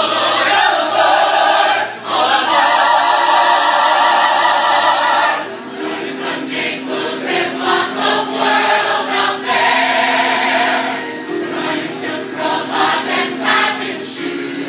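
Musical-theatre cast singing in chorus, men's and women's voices together, in a Broadway showtune. A loud held chord about two seconds in gives way to softer, more rhythmic singing after about five seconds.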